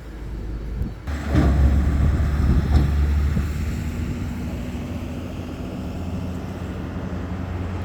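A car running with a steady low hum. About a second in, a sudden loud low rumble starts with a couple of sharp knocks, then eases back into the hum.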